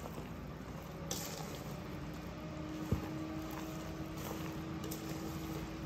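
Soft, quiet kitchen handling sounds as cut apple pieces and their juices are added to a bread pudding mixture, with one sharp click about three seconds in. A faint steady hum comes in about two seconds in.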